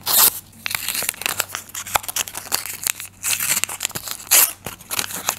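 Paper rustling and crinkling as a handmade paper surprise packet is unfolded and a paper cut-out marker is pulled out: a run of crisp crackles and rustles, with a few louder ones at the start and near the end.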